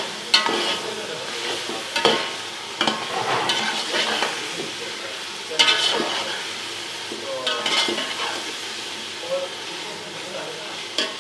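Chicken and peas sizzling as they fry in ghee with spices, the bhuna stage of browning the masala. A spoon stirs and scrapes against the pan every second or two, each stroke with a short metallic ring.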